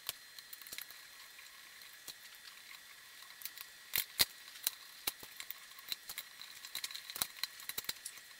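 Scattered light clicks, taps and clacks of small metal parts being handled on a plywood-and-aluminium CNC Z-axis assembly as its stepper-motor mount is loosened and readjusted, with a few sharper knocks about four seconds in and near the end.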